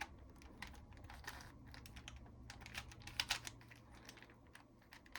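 Plastic 4x4 Rubik's cube being twisted by hand: an irregular run of quick clicks and clacks as its layers turn.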